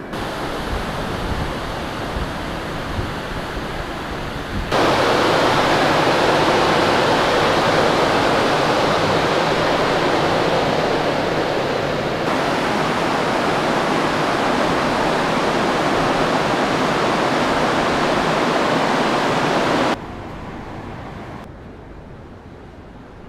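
Steady loud rushing noise on a ship's open deck. It jumps louder about five seconds in and drops away sharply near the end.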